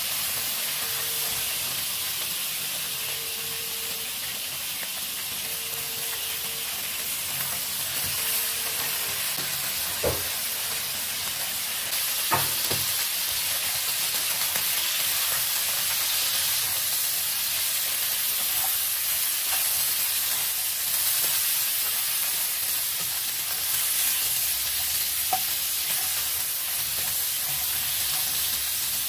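Lamb pieces sizzling as they brown in hot oil in a metal wok, stirred with a wooden spatula that knocks against the pan a couple of times near the middle.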